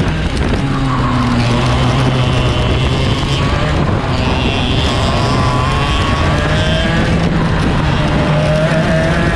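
Two-stroke racing kart engines running hard through a lap, their pitch falling and climbing again through the corners, over a steady rush of noise.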